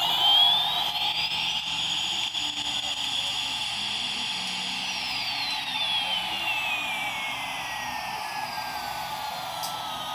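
Jet aircraft engine whine that climbs steeply in pitch, holds high for about three seconds, then slowly falls away, over a steady rush of engine noise.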